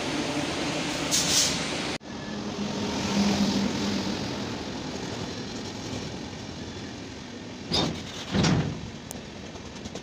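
Indian Railways passenger train rolling past below with a steady rumble of wheels on the track, and two short, louder bursts near the end.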